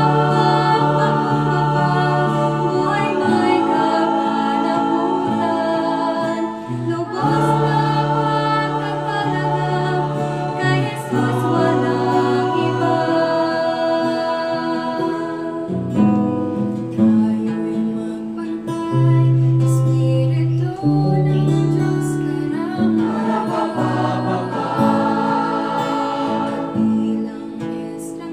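A small group of voices singing a Tagalog worship song together in harmony, with an acoustic guitar accompanying.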